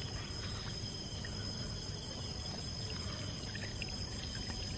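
Steady chorus of night insects, crickets calling, a constant high-pitched ring.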